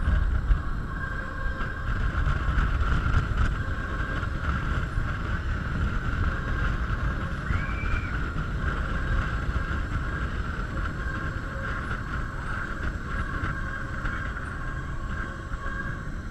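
Amusement ride in motion: wind rumbling over the on-board camera with a steady two-note mechanical whine from the ride's drive, and a short rising-and-falling whistle about halfway through.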